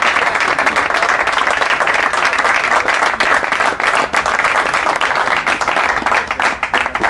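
A crowd applauding: many hands clapping in a dense, steady patter that thins out near the end.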